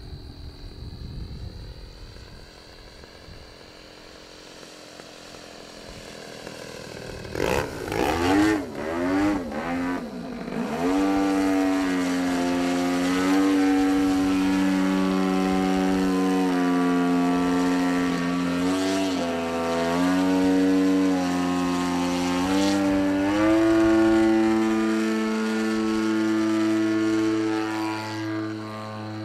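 Engine of a 50–60cc radio-controlled Edge 540T aerobatic plane, a two-stroke gas engine with propeller. It is faint at first, then about seven seconds in it comes in loud with a swooping rise and fall in pitch, then runs as a steady drone whose pitch steps up and down a few times with the throttle, and cuts off suddenly at the end.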